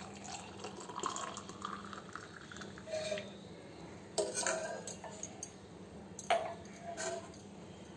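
Hot kadha being strained into a cup: liquid trickling through the strainer, rising slightly in pitch as the cup fills about a second in, and clinks of the strainer against the cup and pan, sharpest about four and six seconds in.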